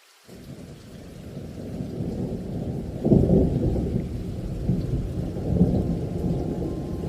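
A deep rumble that starts a moment in, builds up, and surges about three seconds in.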